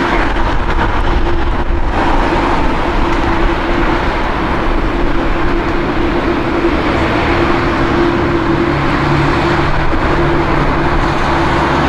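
Boeing 787-9's GEnx-1B turbofan jet engines running at idle while the airliner holds nearly still: a steady, even rush of jet noise with a constant held note.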